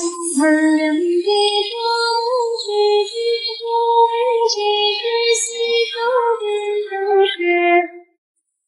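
A high-pitched voice singing a melody in long held notes, cutting off abruptly about eight seconds in.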